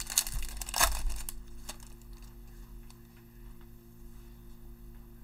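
The foil wrapper of a 2020 Panini Select football card pack being torn open and crinkled by hand. It crackles loudest in the first second or so, then goes on as quieter rustling with a few small clicks.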